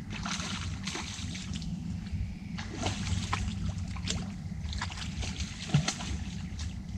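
Water splashing and sloshing in irregular bursts as a hooked tench is played close in at the lake margin and brought to the net, with one sharp thump a little before the end.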